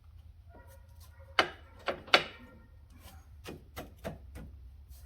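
Metal parts knocking and clicking as they are handled and fitted together: a brief ringing scrape, then three sharp knocks close together about a second and a half in, followed by four lighter taps at an even pace.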